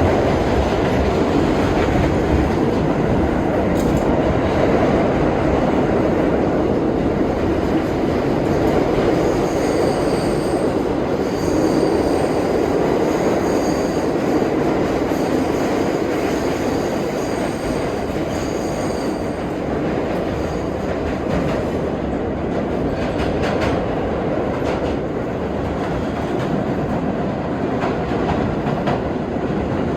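R32 subway car running in the tunnel: a steady rumble of steel wheels on rail, with a high wheel squeal coming and going for several seconds midway through.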